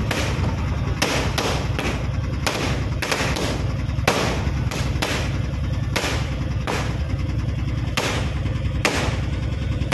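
Auto-rickshaw running, a steady low engine and road rumble, with frequent sharp bangs a few times a second at irregular intervals.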